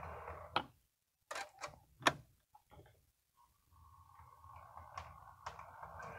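HO scale model diesel locomotive's motor hum stops a little under a second in, followed by a few sharp clicks. From about halfway the motor whine starts again and grows louder as the locomotive runs back, with occasional clicks from the wheels on the track.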